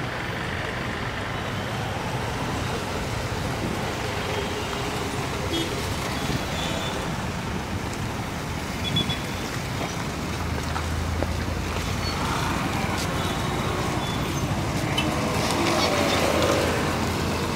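Steady city street traffic: motorcycles, cars and auto-rickshaws running past, with a low engine drone swelling for a few seconds around the middle.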